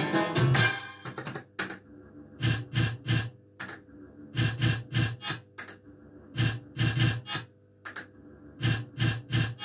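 Astra Riverboat Gambler fruit machine playing game after game. About every two seconds there is a quick cluster of sharp clunks and electronic beeps as the reels spin and stop, with a faint steady hum in between. The first second has a busier run of electronic jingle.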